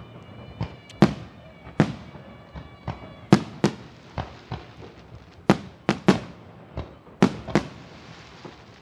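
Fireworks going off in an irregular string of sharp bangs, about a dozen over several seconds, several coming in quick pairs, each with a short fading echo.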